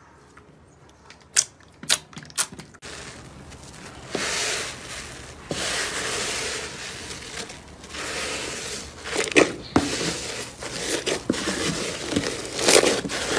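Hands working slime: a few sharp clicks and pops from stretched clear slime, then after a cut a hand squeezing and tearing fluffy cloud slime, with dense crackling and crunching and sharp louder pops.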